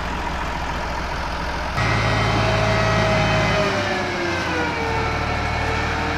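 Massey Ferguson 260 tractor's three-cylinder diesel engine running steadily as it moves a brick-laden trailer. About two seconds in the sound gets louder, and a whining tone slowly falls in pitch.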